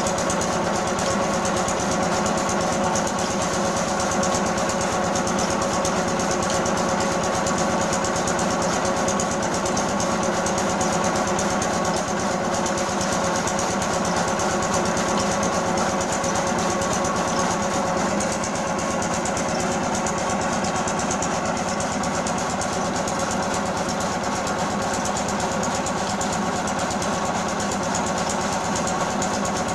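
Small stationary engine running steadily, belt-driving a flywheel chaff cutter as green fodder stalks are fed in and chopped, an even, fast mechanical clatter.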